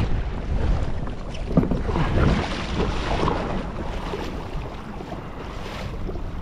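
Wind buffeting the microphone in a low, uneven rumble, with water moving around a kayak on the sea.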